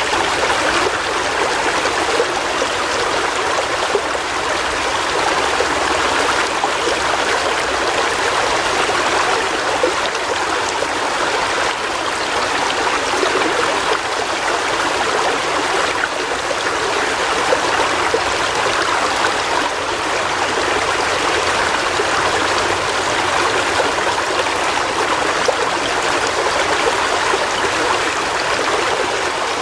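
River water flowing steadily over rocks: a continuous rushing with a light burbling.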